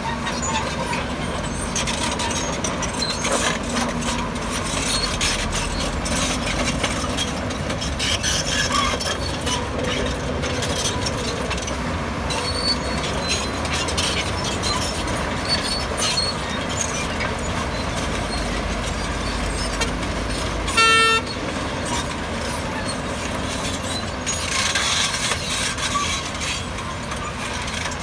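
Heavy earthmoving machinery running under load, with stone clattering and scraping throughout. A short horn toot sounds about two-thirds of the way through and is the loudest sound.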